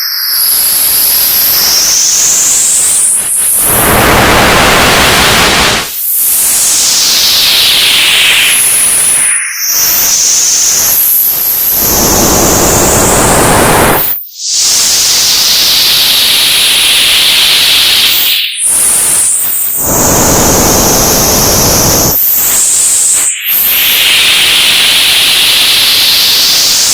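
Old television static: a loud, even hiss with high whistling tones that sweep down and back up. It cuts out briefly about every four to five seconds.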